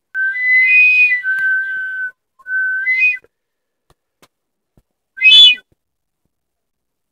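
A whistle blown in three high, warbling calls: a long one of about two seconds that shifts up and back down in pitch, a shorter one just after, and a loud short blast about five seconds in.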